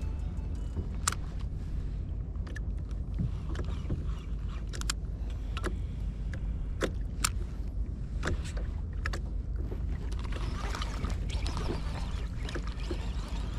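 Fishing kayak on the open sea: a steady low rumble of wind and water, with scattered sharp clicks and knocks. A soft hiss rises near the end.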